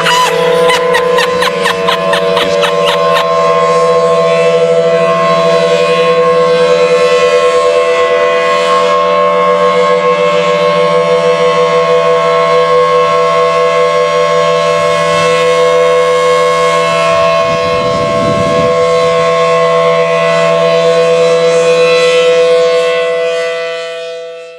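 Civil defense siren sounding a loud, steady chord of several held tones, fading out near the end. A rapid clicking runs through the first few seconds.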